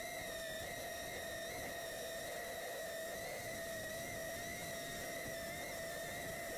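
Steady, slightly wavering whine of small electric motors and propellers running, over a hiss of wind and air noise.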